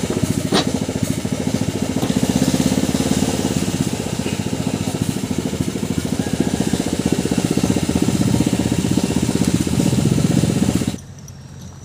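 Small air-cooled boat engine running steadily at a fast, even beat. It is mounted in the hull of a long-tail racing boat and is being held by hand while its alignment is set. The sound cuts off abruptly near the end.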